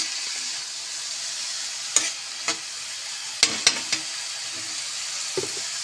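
Cut green beans sizzling in hot oil in a metal wok, with a steady hiss, while a metal spatula stirs them. The spatula clinks and scrapes against the pan about two seconds in and several times around three and a half to four seconds.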